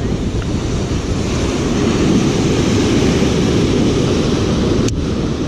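Strong wind buffeting the microphone over the sound of ocean surf breaking, a dense, steady rumble. There is a single sharp click near the end.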